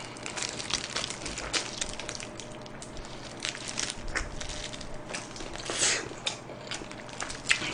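A person chewing sauce-coated fried chicken, with irregular crisp crunches and crackles as the crust breaks.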